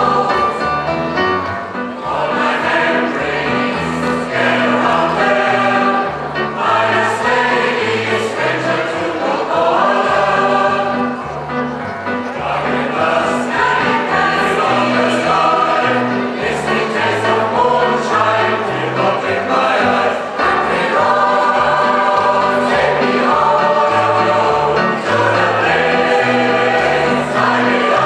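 Large combined choir singing a song in full chords, continuously.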